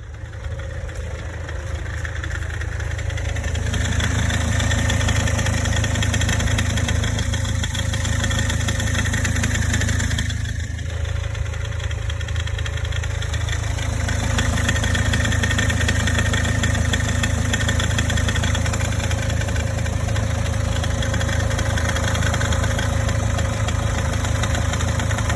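Toyota Corolla E150 engine running after a cold start, with a clicking rattle from the accessory belt's tensioner pulley, like a rattling alternator bearing. The rattle comes from the tensioner working under load while the alternator recharges the battery after the start: the tensioner pulley is worn. The sound grows louder over the first few seconds and dips briefly near the middle.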